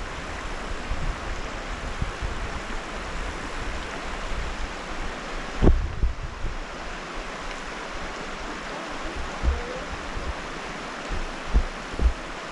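Steady rush of flowing creek water, with low wind buffeting on the microphone and a single thump about six seconds in.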